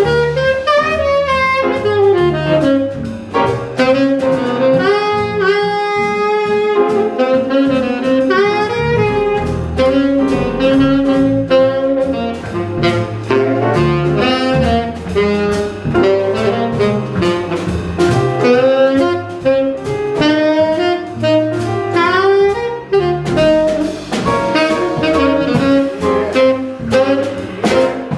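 Live jazz: a saxophone solo in quick running lines over piano, upright bass and drum kit.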